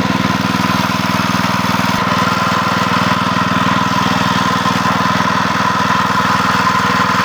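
A small engine running steadily at an even idle-like speed.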